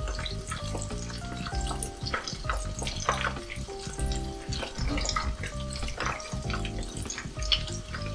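Chicken karaage deep-frying in a pot of hot oil, a steady crackling sizzle of many small pops, under background music.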